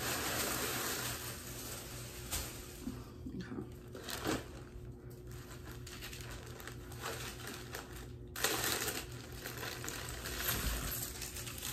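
Tissue paper rustling and crinkling as a dress is unwrapped from its packaging and handled, with a few sharper crackles.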